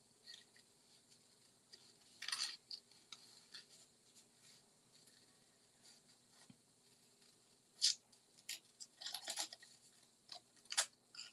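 Small scissors fussy-cutting paper: quiet, short crisp snips at irregular intervals, one early and a denser run of snips near the end.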